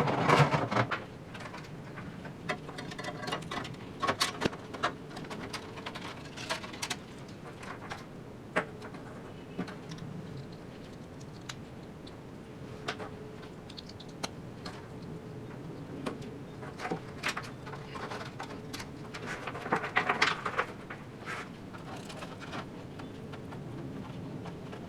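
Scattered clicks, taps and light rattles of hands fitting computer parts and screws into a PC case, busiest near the start and again about twenty seconds in, over a faint steady hum.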